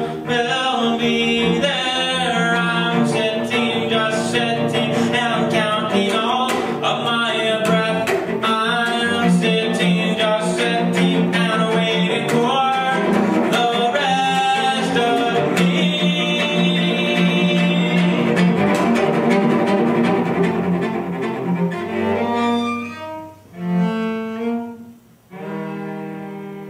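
Solo cello played with a bow: a busy passage of quick notes, thinning out about three-quarters of the way through to a few long held notes that fade away as the piece ends.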